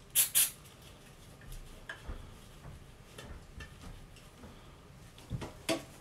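Two short squirts of aerosol brake cleaner onto an engine main bearing cap, dissolving the plastic clearance-gauge residue, then quieter handling noises and a couple of knocks near the end.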